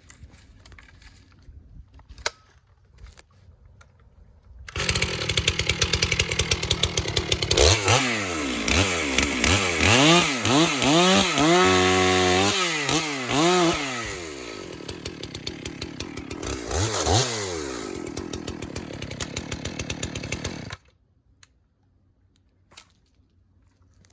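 Two-stroke chainsaw starting up loud about five seconds in, then revved and cutting into a log, its engine pitch repeatedly rising and falling under load before steadying. It cuts off suddenly near the end.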